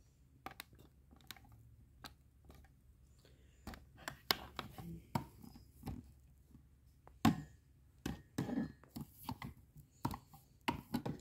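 Handling noise: scattered knocks, taps and scrapes as the recording phone is set down and repositioned, with objects being moved about close by. The knocks grow louder and more frequent from about four seconds in.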